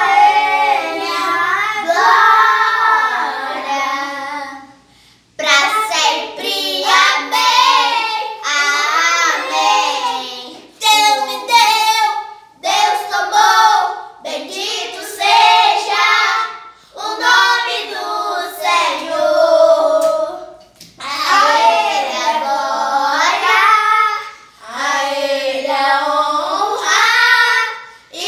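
A high, child-like voice singing a song without accompaniment, in sung phrases broken by short pauses, the longest about five seconds in.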